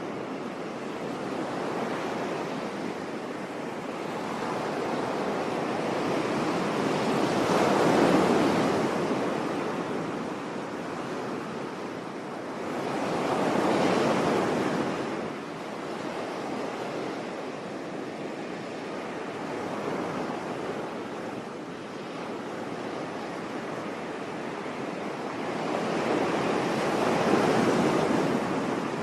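Sea waves breaking and washing onto a beach: a steady surf hiss with three slow surges that swell and fade, the loudest about eight seconds in.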